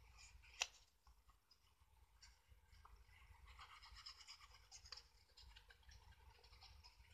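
Faint scratching and rubbing on cardstock, thickest in the middle, with one sharp click about half a second in.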